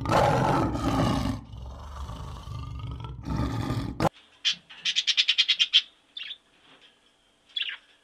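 Lion roaring in long, deep calls that stop abruptly about four seconds in. Budgerigars chirping follow: a quick run of about ten chirps, then a few single chirps.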